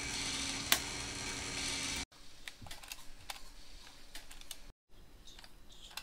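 Light, irregular plastic clicks and rattles from a pink plastic toy bomb device (Spycode bomb-defusing game) being turned and handled. In the first two seconds there is only a steady hiss with one sharp click.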